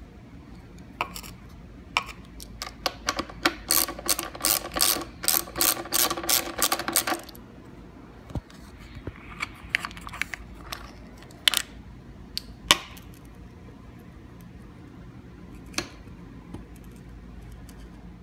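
Hand ratchet clicking as it turns the silencer mounting bolt out of a dirt bike's exhaust: a quick run of clicks for several seconds, then a few scattered single clicks and knocks.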